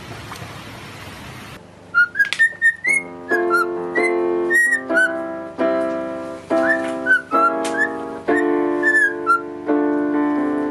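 Steady rush of water noise for about a second and a half, then a cockatiel whistling a tune in short notes that slide up and down, over chords played on a keyboard.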